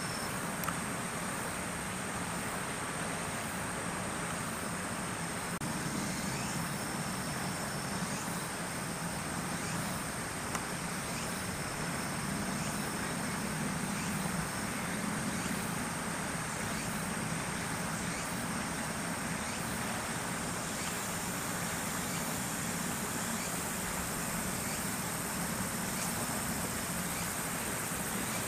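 Steady outdoor background noise: a low hum like distant road traffic, with a constant thin high-pitched tone above it and a fainter high tone that comes and goes.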